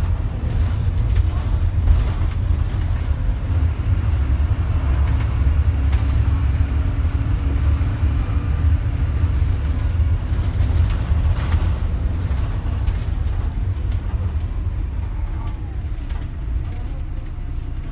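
Interior sound of a MAN 14.240 Alexander Dennis Enviro200 single-deck bus on the move: its six-cylinder diesel engine running with a steady low drone, mixed with road and body noise through the saloon.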